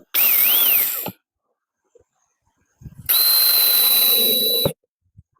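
A small power tool's motor running in two short bursts that start and stop sharply. The first, about a second long, has a wavering pitch. The second, about a second and a half, has a steady high whine.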